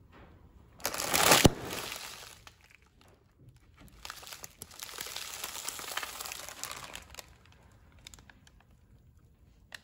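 A car tyre rolls over a plastic bag of popcorn. About a second in the bag gives way with a loud sudden pop and rush, then the crushed packet crinkles and crackles under the tyre for about three seconds.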